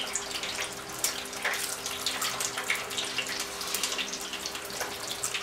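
Hot oil bubbling and crackling steadily in an electric deep fryer with a batch of spring rolls frying, over a steady low hum.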